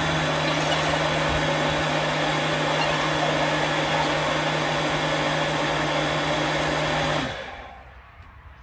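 Electric blender running steadily at one speed, mixing ground puppy kibble, milk powder and warm water into a liquid feed, then switched off about seven seconds in and winding down.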